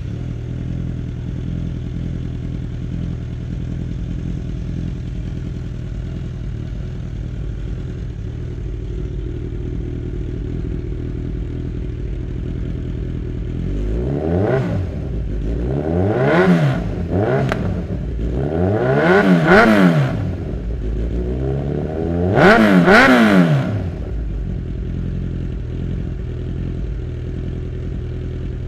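Kawasaki Z1000's inline-four engine through a Jeskap 4-into-2-into-1 full exhaust, idling steadily, then revved in a series of sharp throttle blips about halfway through, the last two the loudest, before settling back to idle.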